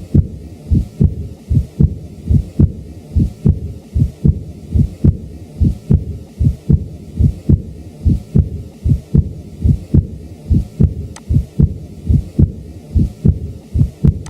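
Auscultated heart sounds from a man with mild aortic regurgitation, beating in a steady regular rhythm. Each second heart sound is followed by an early diastolic murmur, typically of high-frequency blowing quality.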